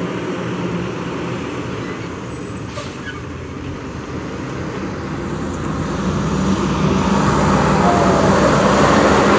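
Garbage truck's diesel engine running as the truck drives up and passes close by, growing steadily louder. A short high squeal starts near the end.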